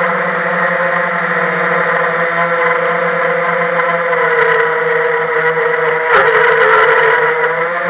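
FPV quadcopter's electric motors and propellers whining steadily, heard close from on board. The pitch sags a little about four seconds in, and the whine grows louder and rougher for about a second around six seconds in.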